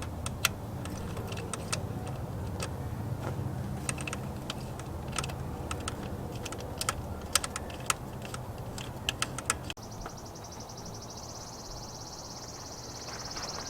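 Light, irregular clicks and taps of tools and parts being handled during coil pack work on a Crown Victoria's engine. About ten seconds in, the sound cuts suddenly to a steady high-pitched drone.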